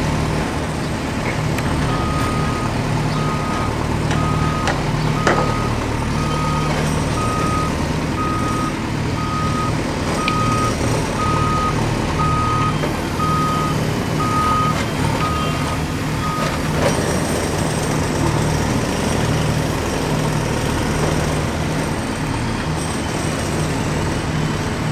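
Reversing beeper sounding a steady series of single-pitched beeps, about one every three-quarters of a second, that stops about two-thirds of the way through, over a continuous low engine rumble.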